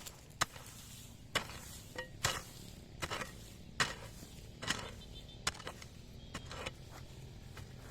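A series of about a dozen sharp knocks at uneven intervals, roughly one a second, like blows from a hand tool.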